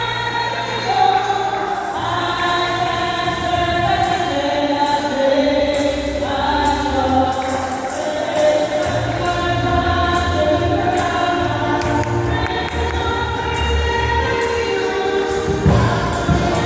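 A women's church choir singing a gospel hymn medley in several parts into microphones, with long held notes over a steady low accompaniment.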